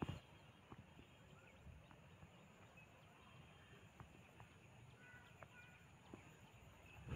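Near silence: faint outdoor ambience, with a soft knock at the start, scattered faint ticks and a few short high chirps about five seconds in.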